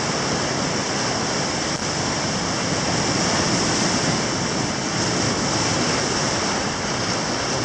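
Ocean surf washing up on a beach: a steady rush of breaking waves.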